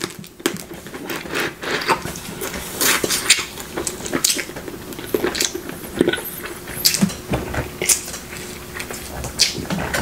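Close-miked eating of snow crab legs: sucking meat from a leg and chewing, a steady run of wet mouth smacks and clicks.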